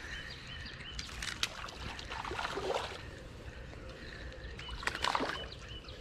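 A small rainbow trout splashing at the surface on the line as it is reeled in. Three bursts of splashing come about a second, two and a half and five seconds in.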